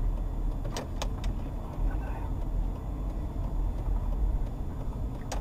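Low, steady rumble of a car driving slowly, heard from inside its cabin. Three sharp clicks come about a second in and another near the end.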